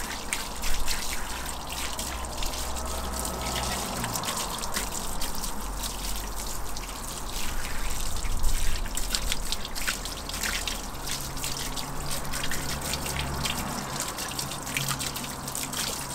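Garden hose spray nozzle jetting water over an alloy wheel and its tyre, the water spattering and splashing off onto paving slabs as the wheel fallout remover is rinsed away.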